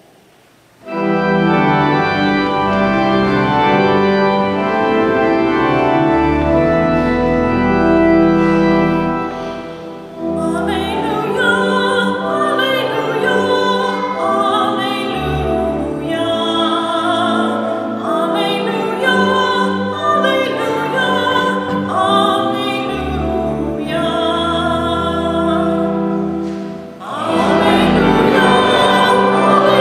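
Church organ playing sustained chords, then a singer with vibrato joins about ten seconds in and sings over the organ accompaniment, with a short pause near the end.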